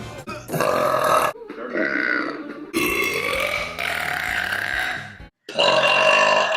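Women burping: a run of about five long, drawn-out belches with a clear pitch, each cut off sharply before the next.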